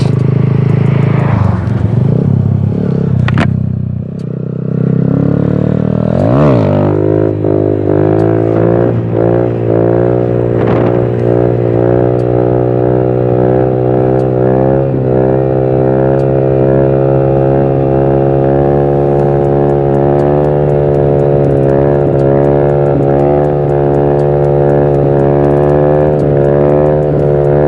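Honda Titan 150 motorcycle's single-cylinder engine revving up about six seconds in, then held at steady high revs, wavering a little with the throttle, as the bike is ridden on its back wheel in a wheelie.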